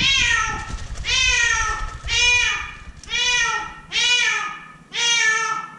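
A cat trapped at the bottom of a deep light well meowing over and over, about one meow a second, six calls in all, each rising then falling in pitch.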